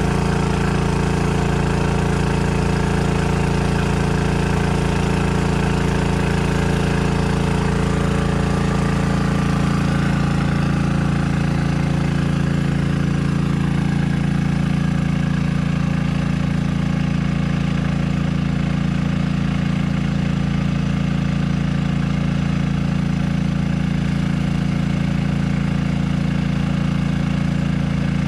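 Small engine of a portable drum-mounted asphalt sealer sprayer running steadily at one speed, driving the pump that sprays sealant through the hose.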